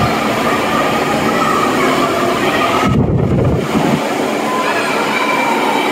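Loud, steady, echoing din of a crowded indoor pool deck before a swim heat, with many voices and pool noise blended into one roar. A brief low rumble comes about three seconds in.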